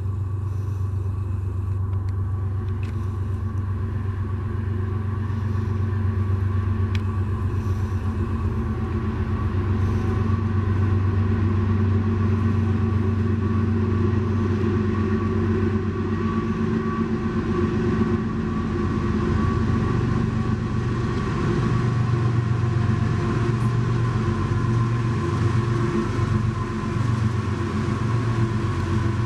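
Diesel locomotives of a CSX coal train running: a steady low engine drone with a thin, steady higher tone above it.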